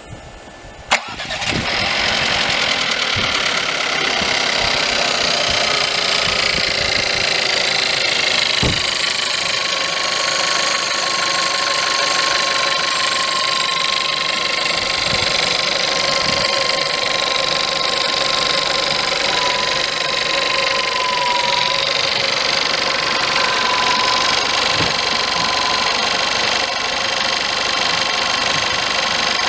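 VW Polo 1.2 TSI turbocharged four-cylinder petrol engine cold-started: a sharp click about a second in, then it catches and settles into a steady idle with the rattling noise it makes when cold.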